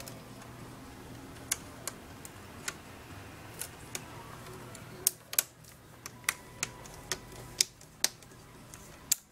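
Plastic screen bezel of an HP Pavilion m6 laptop being pressed back onto the lid by hand: a string of small, irregular clicks as its snap clips catch, sparse at first and thicker and louder in the second half.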